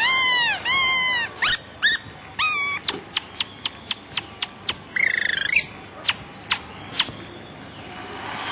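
Cartoon-style chirp and whistle sound effects on the playback track for a comic dance routine. A quick run of rising-and-falling chirps gives way to short sharp blips, with a brief warbling trill about five seconds in, and the effects fade out near the end.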